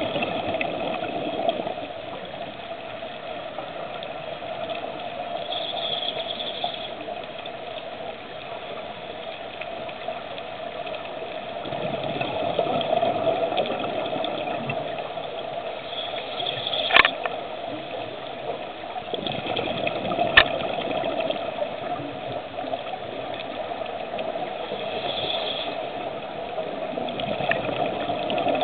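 Muffled underwater sound of a scuba diver breathing through a regulator, the exhaled bubbles gushing in swells every several seconds. Two sharp clicks come a few seconds apart near the middle.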